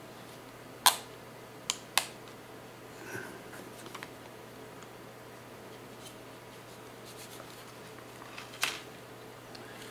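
Sharp plastic clicks and taps from a screen-protector installation tray being handled and lifted off a phone: three clicks in the first two seconds, a few faint ticks, and another louder click near the end.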